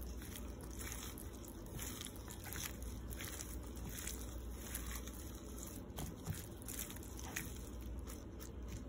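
A gloved hand tossing sliced cucumbers, carrots and onions in a wet chili-paste marinade in a bowl: irregular soft squishing and rustling of the coated vegetables, with one sharper click about six seconds in.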